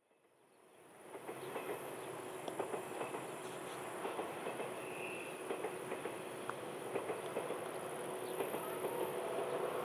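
Outdoor ambience fading in over the first second: steady high-pitched chirring of insects such as crickets, over a faint hum and scattered light clicks.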